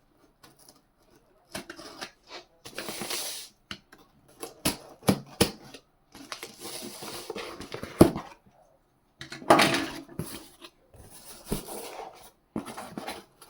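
Packaging being handled and opened: a run of sharp clicks and knocks with stretches of rustling and crinkling, as a cardboard box and the plastic wrapping around a car stereo head unit are pulled open.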